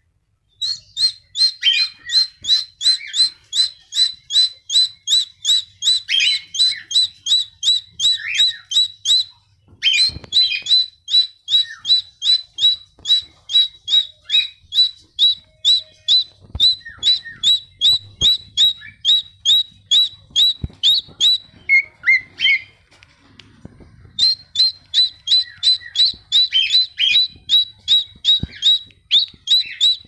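Cockatiel calling a short, sharp chirp over and over, about three to four a second, in three long runs with brief pauses between them.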